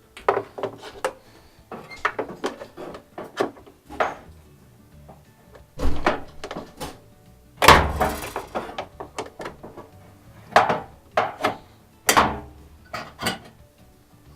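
Irregular knocks and clanks of a wrench and metal parts being handled while the shock absorbers of a Bosch Nexxt washer are unbolted. The loudest is a longer knock about eight seconds in. Faint background music plays under it.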